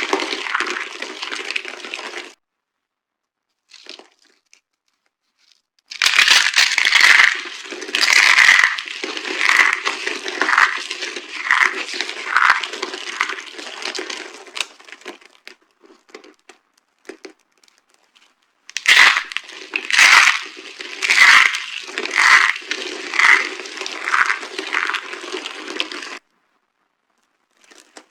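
Dry soap being crushed: repeated crisp crunches and crackling as it breaks and crumbles, about one crunch a second, in spells broken by cuts to silence.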